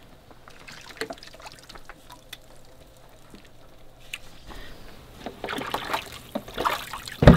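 Brine dripping and trickling from freshly brined black cod fillets hung on a wooden rack to drip dry. Sparse light ticks at first, busier in the second half, with a sharp knock near the end.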